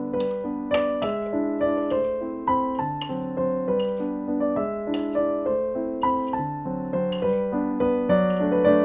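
Background piano music: a steady run of struck notes, each fading away, over lower held notes.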